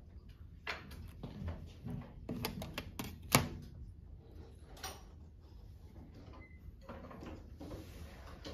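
Hand-drafting sounds: a pencil tapping and scratching on drafting paper, and a clear plastic drafting triangle clicking down against the table's straightedge. A run of small clicks comes in the first few seconds, the sharpest about three and a half seconds in, and a soft scratchy pencil stroke comes near the end.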